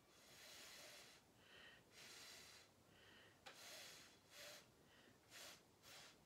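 Faint puffs of breath blown through a drinking straw, a short burst about once a second, pushing wet acrylic paint across the surface to loosen its edges.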